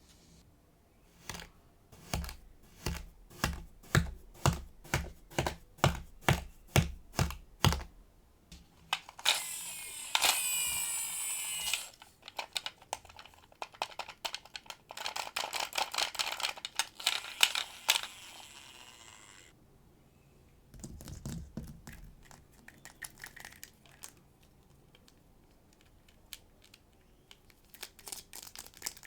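Close-miked ASMR handling sounds: a run of about a dozen even taps, about two a second, then a few seconds of steady hissing, then a stretch of crackling and rustling, with scattered clicks near the end.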